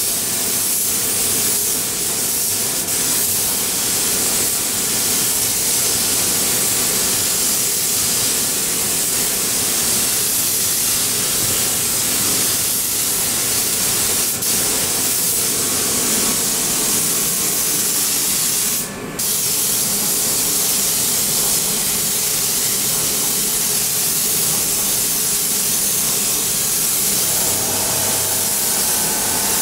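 Compressed-air paint spray gun hissing steadily as paint is sprayed onto a car's door panels, with one brief break in the spraying about nineteen seconds in.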